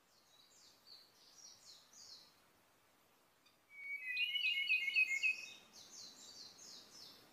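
Ryukyu robin singing: a fainter run of high, quick notes, then about halfway in a louder, lower phrase of rapid notes lasting under two seconds, followed by more high notes.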